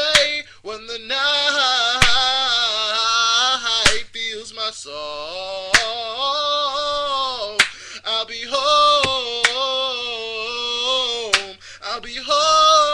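Male voice singing wordless, drawn-out notes, with a sharp snap about every two seconds keeping the beat.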